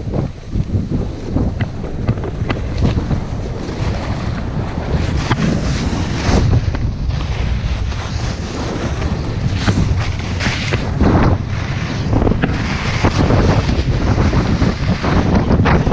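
Heavy wind buffeting on an action camera's microphone while riding downhill at speed. Over it runs a surging hiss and scrape of edges carving across snow.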